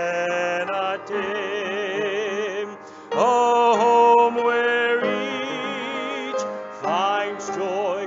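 A hymn being sung, with long held notes carrying a wide vibrato. The singing drops off briefly a little before halfway through, then comes back louder.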